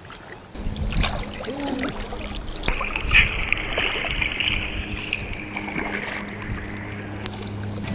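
Water sloshing and splashing against a waterproof action camera held at the surface as a snorkeler in fins swims off, with a couple of knocks on the housing. The sound turns muffled about three seconds in.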